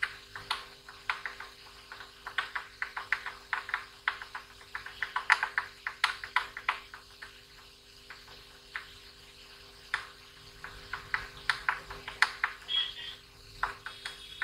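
Soldering iron held on flux-pasted chip pins, with rapid irregular crackling and ticking in clusters as the flux boils and burns off moisture corrosion on the pins.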